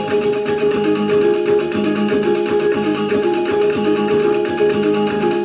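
Kulintangan gong music: a row of small tuned gongs playing a quick, repeating melody of short notes over a steady beat.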